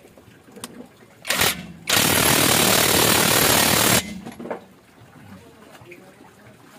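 Cordless impact wrench hammering on the spindle nut of a rear wheel bearing hub as it runs the nut down tight. There is a short burst a little over a second in, then a steady run of about two seconds that cuts off suddenly.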